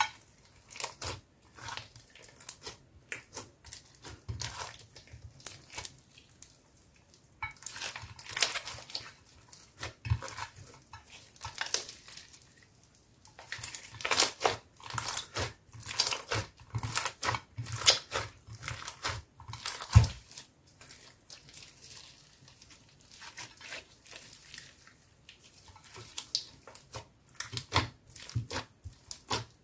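Hands kneading, squeezing and stretching clear slime loaded with clay, glitter and foam beads: irregular wet crackling and popping in clusters as trapped air pockets burst. A single dull thump about two-thirds of the way through.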